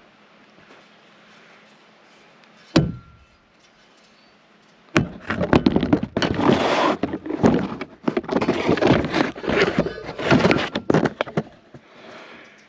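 A single sharp thunk about three seconds in, then some six seconds of rapid, loud knocking and clattering of hard objects being handled.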